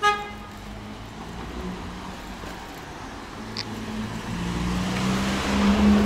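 A short car horn toot at the very start, then a car engine approaching with a steady hum that grows louder toward the end as it comes close.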